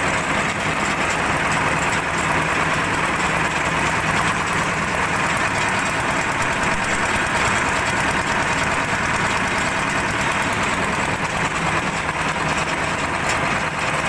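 Single-cylinder diesel engine of a concrete mixer running steadily.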